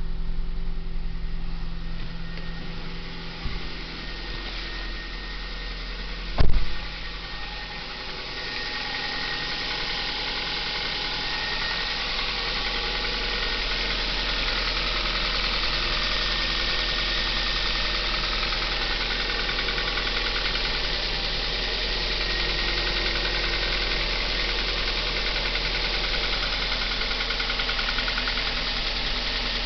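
Kia Ceed engine idling soon after a cold start, with a knocking rattle in its running that shows up at the raised cold-idle revs. A single loud thump about six seconds in.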